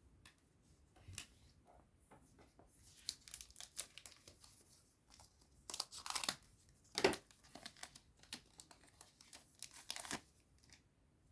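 A Digimon Card Game booster pack wrapper being torn open and crinkled by hand, in irregular crackly bursts that grow loudest about halfway through and stop shortly before the end.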